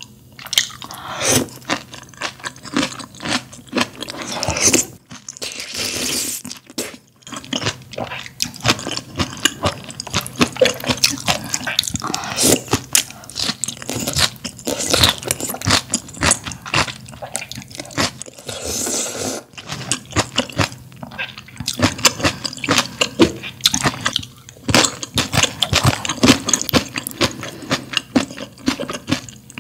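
A person slurping glass noodles and chewing them, with wet, sticky mouth clicks, and several longer slurps among the chewing.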